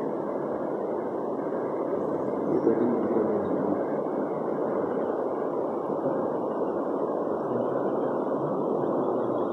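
A steady, dull rushing noise with no distinct events.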